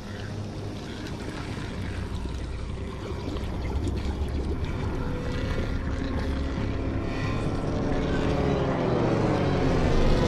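Cinematic intro sound design: a deep rumble that swells steadily louder, with sweeping tones gliding up and down over the last couple of seconds as it builds into music.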